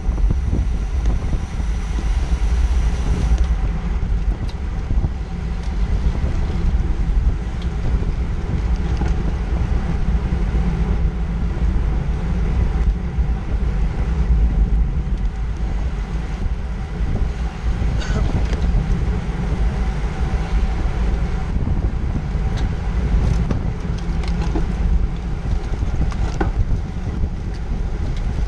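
Wind buffeting the microphone while riding in a road-bike race pack, a steady low rumble, with a few sharp clicks from the bicycles here and there.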